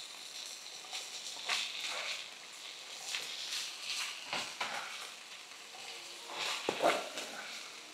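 Chopped okra frying in oil in a wide stainless steel pan, stirred and tossed with a spatula: a faint sizzle under several short scraping, tossing strokes, the loudest near the end.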